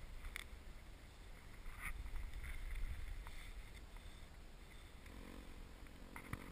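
Faint, low wind rumble on the microphone, with a few light knocks. A faint steady hum comes in about five seconds in.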